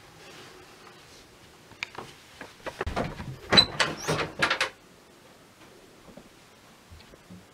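A wooden door's handle being turned, its latch clicking and rattling in a quick run of knocks, with a brief squeak in the middle; the clicks are loudest from about three to four and a half seconds in, then it goes quiet.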